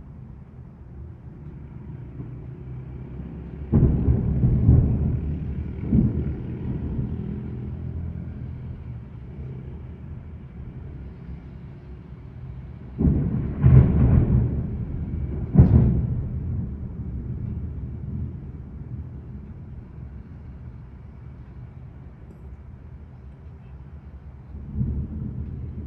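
Thunder: a peal about 4 seconds in with a second crack soon after, then the loudest pair of claps around 14 and 16 seconds in, each rumbling away slowly, and a softer peal near the end, over a steady low background of storm noise.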